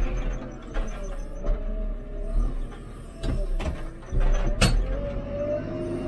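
JCB 3CX backhoe loader's diesel engine running with a hydraulic whine that wavers and rises toward the end, heard from inside the cab. Several sharp knocks and clanks come through, the loudest about two-thirds of the way in.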